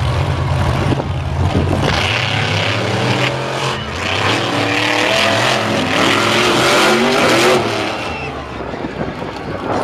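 Two monster truck engines idling low at the start line, then revving hard as the trucks race off. The pitch rises and falls over and over as they accelerate and jump, and it eases off near the end.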